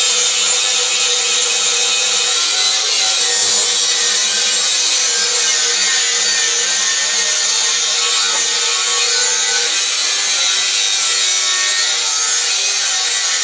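Power tool working on wood, running steadily without a break.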